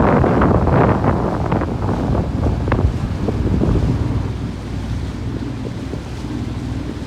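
Wind buffeting the microphone on a moving boat, with water rushing and splashing along the hull and a low steady hum underneath; it eases slightly about halfway through.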